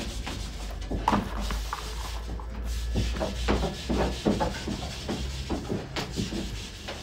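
Hands scooping chopped meat-and-onion filling from a plastic bowl into rounds of samsa dough: irregular soft scraping and rubbing, over a low steady hum.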